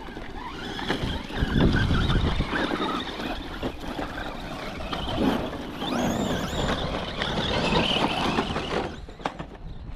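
Radio-controlled cars running over dirt and gravel: motor whine and tyre noise swelling and fading as they pass, with a brief high wavering whine about six seconds in.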